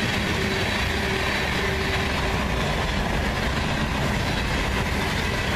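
Freight cars of a CSX mixed freight train rolling past, a steady noise of steel wheels on the rails.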